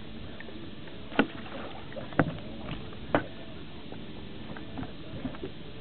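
Three sharp knocks about a second apart as a muskie in a landing net is handled against the side of a fishing boat, with a few lighter clicks and a steady background hiss.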